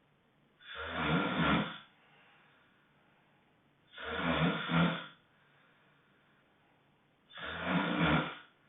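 Honking snores, three of them about three and a half seconds apart, each lasting a little over a second, with near-quiet breaths between.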